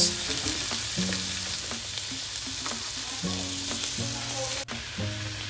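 Mixed mushrooms and shredded chicken breast sizzling as they fry in a wok, stirred with a metal spoon.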